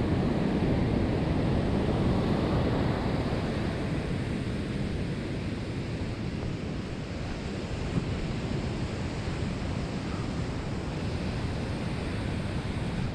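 Ocean surf rushing steadily onto a beach, mixed with wind on the microphone.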